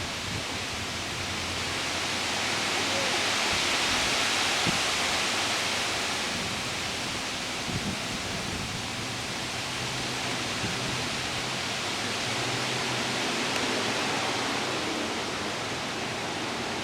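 A steady rushing noise with no clear pitch, swelling a few seconds in and then easing back.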